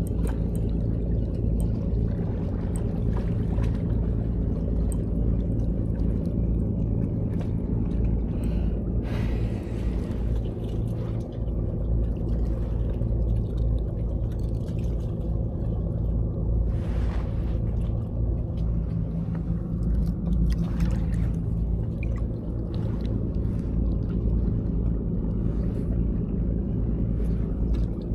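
A steady low engine-like rumble with a constant hum, with a few short noisy sounds over it about a third of the way in and again past the middle.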